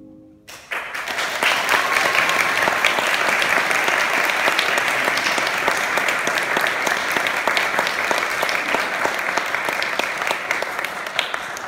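Audience applause breaking out about half a second in and going on steadily, easing off slightly near the end.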